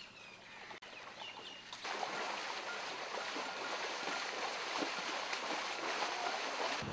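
Rushing floodwater: a steady, even hiss that comes in abruptly about two seconds in.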